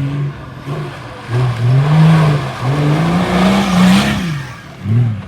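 An off-road 4x4's engine revving up and down several times, with a rushing noise that swells in the middle and is loudest about two to four seconds in.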